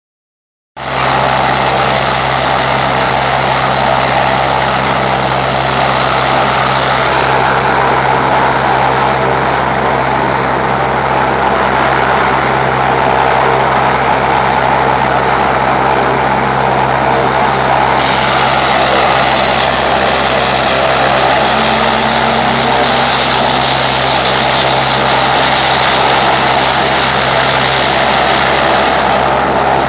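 Agusta A109 K2 rescue helicopter running on the ground: its twin turboshaft engines and turning rotor make a loud, steady whine and rush that holds an even level.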